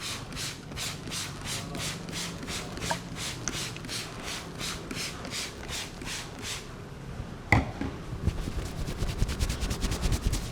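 Hands of a head masseur rubbing the hair and scalp in even strokes, about three a second, then a single sharp snap, and then rapid patting on the head, many strikes a second.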